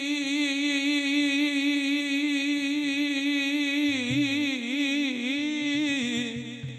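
A male devotional kirtan singer holding one long sung note with a slight vibrato, then breaking into a run of quick melodic turns about four seconds in before trailing off near the end. A low steady tone sounds beneath the voice from about four seconds in.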